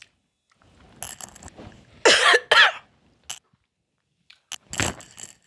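A woman coughing and clearing her throat, with two quick coughs about two seconds in and another near the end: her throat is burning from food with too much pepper.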